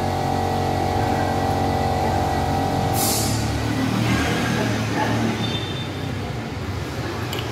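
A machine hums steadily, then cuts off about three seconds in with a short burst of hiss, leaving a rougher, noisier rumble.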